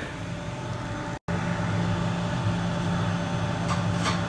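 Steady low mechanical hum of running plant machinery. It cuts out for an instant about a second in, then carries on a little louder.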